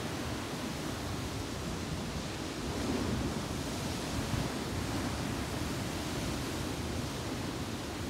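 Ocean waves breaking and washing over rocks: a steady rush of surf that swells slightly about three seconds in.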